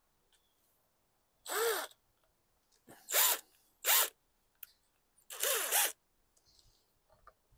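Cordless drill run in four short trigger bursts, spinning off the already-loosened 10 mm nuts holding the recoil starter cover on a small mower engine. In each burst the motor's whine rises and then falls.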